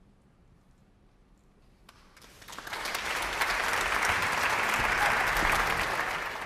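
Concert audience applauding at the end of an orchestral piece: about two seconds of hush, then clapping swells in over a second and holds, beginning to fade near the end.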